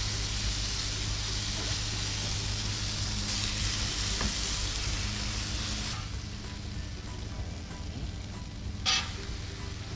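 Chicken breasts sizzling on a Blackstone flat-top griddle as barbecue sauce is brushed on. The sizzle is strongest for the first six seconds and then drops to a lower hiss, with one short sharp noise about nine seconds in.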